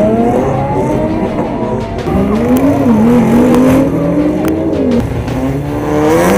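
Performance car engines with Fi valved aftermarket exhausts accelerating hard off the drag-strip start line. The engine note climbs, falls back about two seconds in and again about five seconds in, then climbs again.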